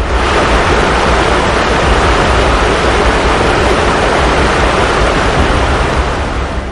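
Loud, steady rushing of water, as of fast floodwater, starting and stopping abruptly.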